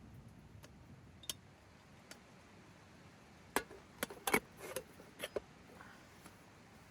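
A few sharp, light clicks and knocks: one a little over a second in, then a quick cluster of about half a dozen from three to five and a half seconds in.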